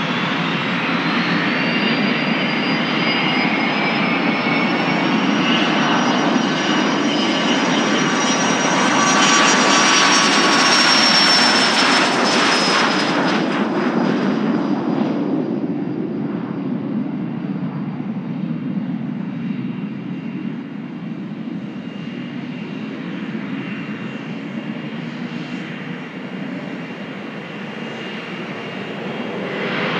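Learjet 75's twin turbofan jet engines on a takeoff run. A high whine rises over the engine noise as the jet spools up and accelerates, loudest around ten to twelve seconds in. It then falls away to a quieter rumble as the jet climbs out.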